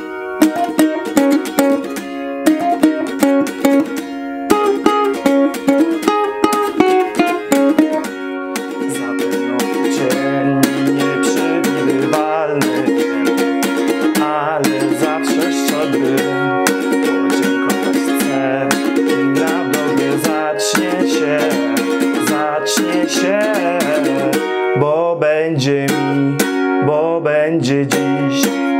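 Ukulele, capoed at the first fret, played along with a recorded pop song. The ukulele is heard alone at first. About eight seconds in, a band with bass joins and the music becomes louder and steady. A singing voice comes in near the end.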